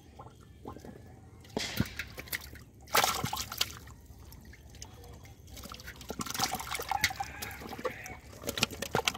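Catfish moving and flopping in shallow muddy water, making irregular splashes and sloshes with drips between them; the loudest splash comes about three seconds in, with another cluster a little past the middle.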